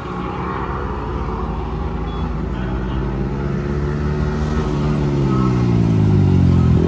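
Yamaha MT-15's single-cylinder engine running through an aftermarket full-system exhaust, growing steadily louder, its pitch falling over the last few seconds.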